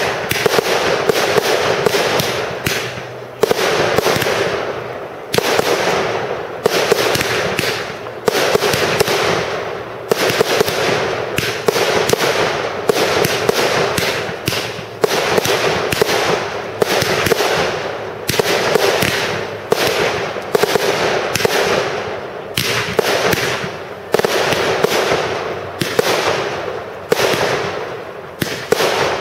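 Display fireworks bursting in the sky in quick succession, a loud bang about every second or so, each dying away in an echo, with dense crackling in between.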